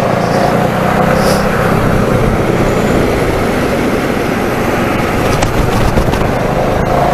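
Bajaj Avenger motorcycle engine running steadily at cruising speed, mixed with heavy wind rush on the action camera's microphone.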